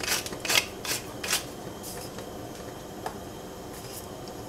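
Chopsticks beating eggs in a ceramic bowl: quick clicking and swishing strokes about every half second, which stop about a second and a half in.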